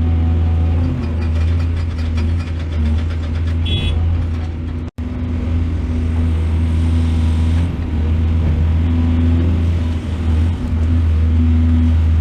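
Heavy excavator's diesel engine running with a steady low drone, broken by a split-second dropout about five seconds in.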